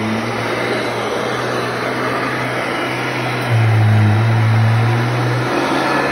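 Royal 882T upright vacuum cleaner running at full speed while being pushed across a shag rug, a steady motor-and-fan noise over a low hum. It grows louder for about two seconds midway.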